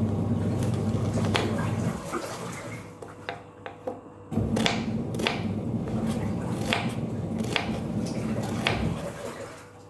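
Kitchen knife slicing an onion on a wooden cutting board, the blade knocking sharply on the board about once a second. Under it a steady low hum of a washing machine motor that stops about two seconds in and starts again a little after four seconds.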